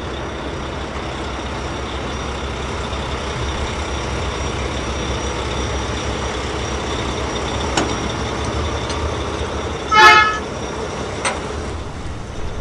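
A single short vehicle horn toot about ten seconds in, over a steady hiss, with a couple of faint clicks before and after it.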